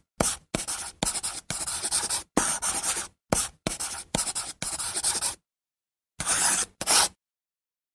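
Scratching, rubbing noise in about eleven short bursts, each cut off abruptly into dead silence, with a pause of nearly a second before the last two.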